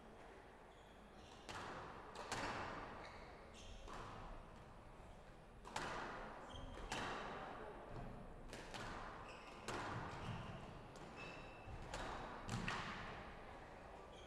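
Squash rally: the ball struck by rackets and hitting the court walls and floor, sharp irregular smacks about once a second with an echo from the glass court.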